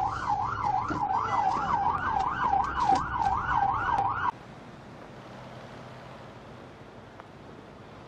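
Police car siren in yelp mode: a fast, rising-and-falling wail, about three cycles a second, with scattered clicks over it. It cuts off suddenly a little over four seconds in, leaving a faint, steady rushing noise.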